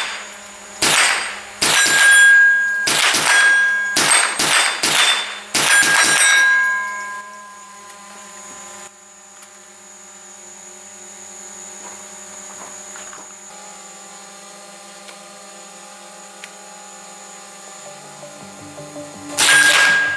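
GSG STG44 .22LR rifle fired at steel plates, about seven shots in the first six seconds, each hit ringing the steel with a clear ding. Then comes a long, much quieter stretch of faint steady tones, and the shots and ringing start again just before the end.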